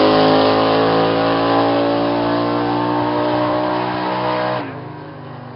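Grave Digger monster truck's supercharged V8 running hard at high revs with a steady pitch, easing down slightly, then dropping off abruptly about four and a half seconds in.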